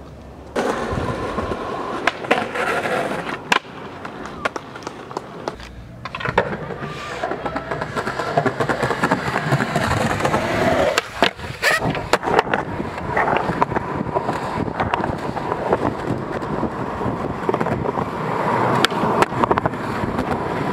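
Skateboard wheels rolling over street pavement, with repeated sharp clacks and knocks of the board hitting the ground.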